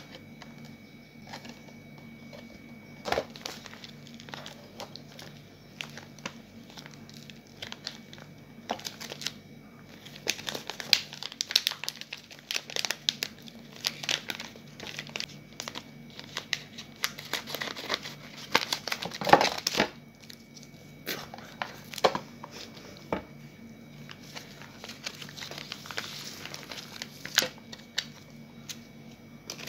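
Clear plastic food wrapper crinkling and rustling as it is handled and pulled open, with scattered sharp clicks and taps of cardboard and plastic packaging. The crinkling is densest in the middle and loudest about two-thirds of the way through. A faint steady hum runs underneath.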